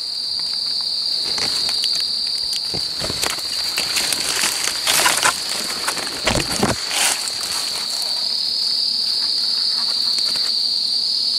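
A steady chorus of night insects holding one unbroken high note, with rustling and crackling of dry leaf litter and brush being disturbed at a few moments, the loudest about five and seven seconds in.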